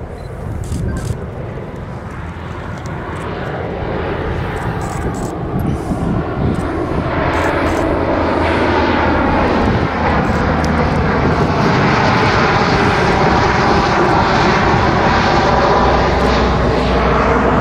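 C-130 Hercules four-engine turboprop flying low overhead, its engine and propeller drone growing louder over the first half and then holding steady, the tones sliding in pitch as it passes.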